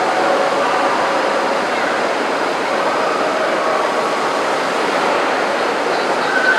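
Steady din of a crowded exhibition hall: many people talking at once, blending into an even murmur.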